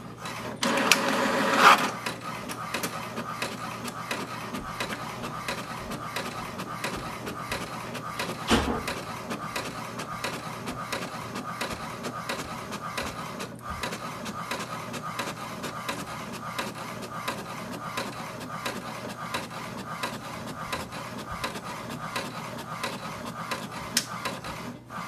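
HP DeskJet 2842e inkjet printer printing a page. About a second in there is a brief loud whir as the paper is drawn in. Then comes a long, steady run of rapid clicking and whirring with one louder knock partway through, and it stops near the end.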